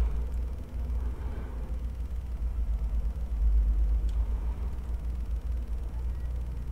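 Low, steady rumble of background noise on the microphone, with a few faint clicks.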